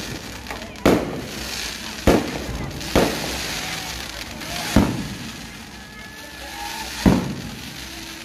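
Fireworks display: five sharp, loud bangs at uneven gaps of about one to two seconds as shells and comets go up, with a steady hiss between the bangs.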